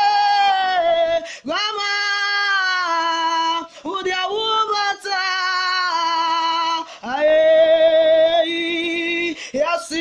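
A woman singing a slow worship song unaccompanied, holding long notes in phrases of a second or two with short breaths between them.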